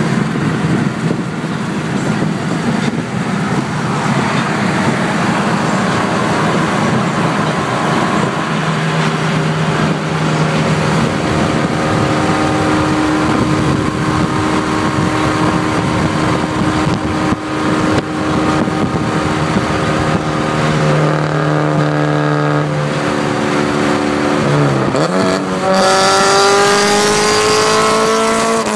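Car engine pulling hard at highway speed under heavy wind and road noise. About 24 seconds in its pitch drops sharply and climbs back. Near the end it rises steadily and louder for about three seconds under full acceleration.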